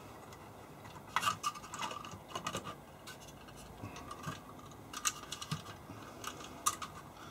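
Light clicks and scrapes of fingers working a plastic ribbon-cable connector free and handling a plug-in circuit board. They come as scattered clusters of small ticks.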